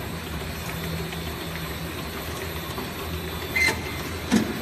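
Pneumatic piston filling and screw capping machine for oil bottles running with a steady hum, then two sharp mechanical knocks near the end, a little under a second apart.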